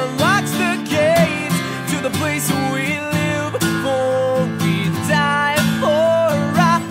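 Background music: a guitar-driven song with a gliding melodic lead line over it.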